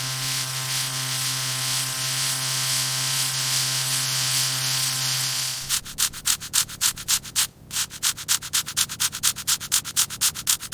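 A steady machine hum with hiss, which stops about five and a half seconds in; then rapid back-and-forth rubbing strokes on wood, about five a second, with a short pause partway through: wood being sanded by hand.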